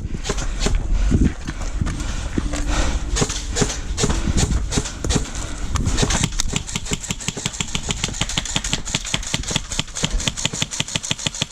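Airsoft guns firing: sharp clicking shots, scattered at first, then a fast, fairly even string of about seven shots a second through the second half.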